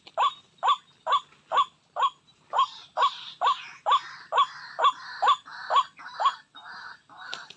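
White-breasted waterhen calls: a steady run of short notes, each sweeping upward, about two a second, which break off near the end into rougher, noisier calling.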